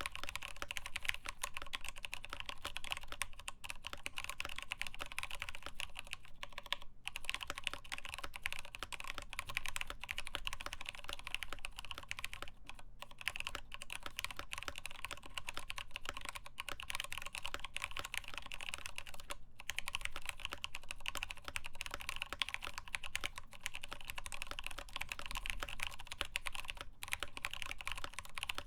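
Continuous typing on a mechanical keyboard with lubed Tealios linear switches, a full steel plate and OEM-profile POM keycaps: a dense, even stream of keystroke clacks with a few short pauses.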